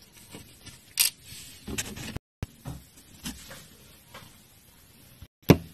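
Handling noise from hands moving small toy figures close to the microphone: scattered light knocks and rustles, with sharper clicks about a second in and near the end. The sound cuts out completely twice for a moment.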